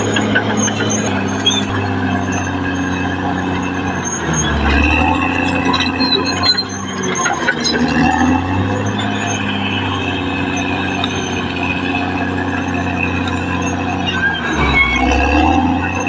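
Caterpillar D6R XL bulldozer's diesel engine running steadily under load. Its pitch drops briefly about four seconds in and again near the end.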